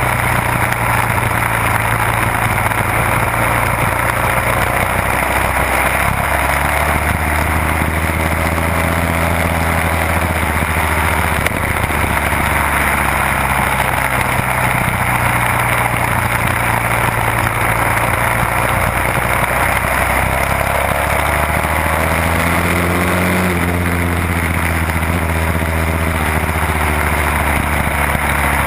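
Onboard sound of a 1968 Seeley Norton Commando racing motorcycle's 750 cc parallel-twin engine running hard at race speed, its pitch falling and rising through the corners, over a steady rush of wind.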